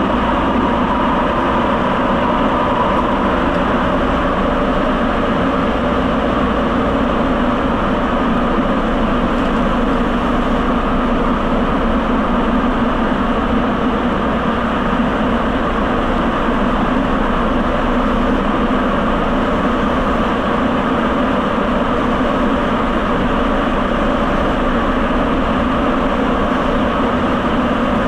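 Sapporo subway Tozai Line train running on its rubber tyres through the tunnel, heard from inside the car as a loud, steady running noise.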